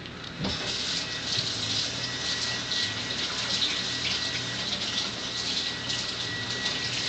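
A steady wet, rushing noise like running water, starting about half a second in, with a faint steady whine.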